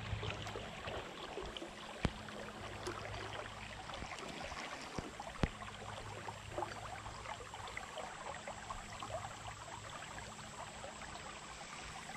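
Faint, steady rush of a shallow river flowing over gravel, broken by a couple of sharp clicks about two and five seconds in.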